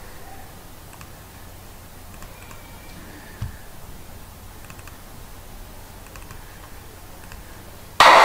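Faint computer mouse clicks while navigating folders. Near the end a music track starts playing suddenly and loudly.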